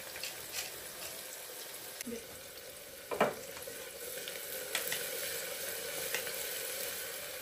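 Oil sizzling steadily as sliced onions and whole spices fry in an aluminium pressure cooker on a gas stove, with a few sharp utensil clicks, the loudest about three seconds in.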